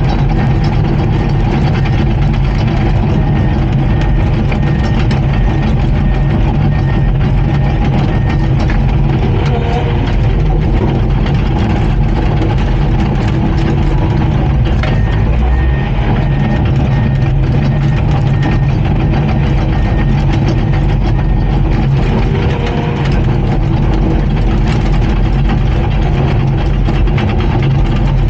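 Komatsu D39PX crawler dozer's diesel engine running steadily under work, with a backup alarm beeping for stretches.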